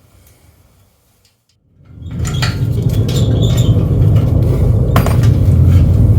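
Light metallic clicks and clinks of tools or small parts being handled, then after a brief dead silence a loud, steady low rumble starts suddenly about two seconds in, with more sharp clinks over it.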